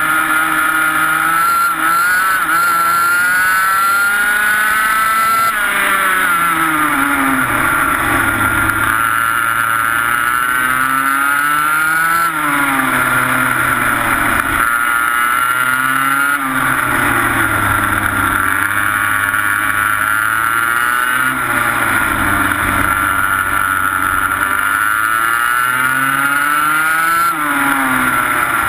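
Onboard 125cc TaG two-stroke kart engine at racing speed, its pitch climbing steadily down each straight and dropping sharply off the throttle into the corners, about five times over.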